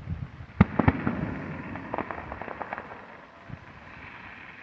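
Fireworks going off: two sharp bangs a little over half a second apart, followed by a scattering of smaller crackles and pops.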